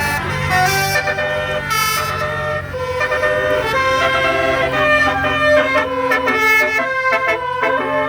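Multi-tone 'basuri' telolet bus horn playing a tune of changing notes, over a steady low hum.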